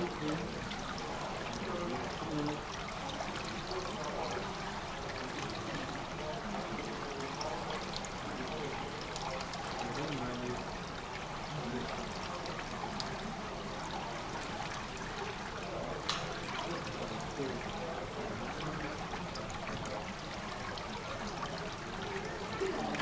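Indoor swimming pool ambience: water steadily trickling and lapping into the pool's overflow gutter grate, with faint distant voices echoing in the hall. A single sharp click sounds about two-thirds of the way through.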